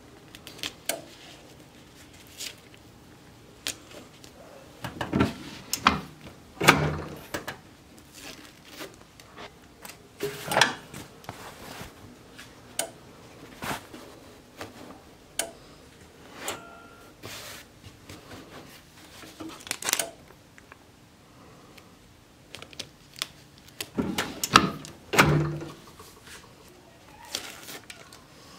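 Scattered clicks and knocks of hats being handled and fitted onto a hat heat press's curved platen, with heavier clunks from the press's clamp lever in two clusters, around five to seven seconds in and again around twenty-four seconds in.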